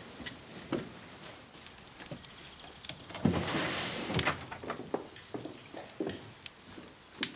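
Footsteps and small knocks of people walking through a room, with a louder rustling noise lasting about a second, starting about three seconds in.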